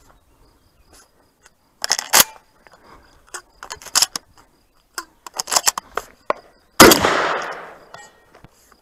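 Shotgun being handled and loaded: a series of sharp metallic clicks and clacks. About seven seconds in comes one loud gunshot that rings out and fades over about a second.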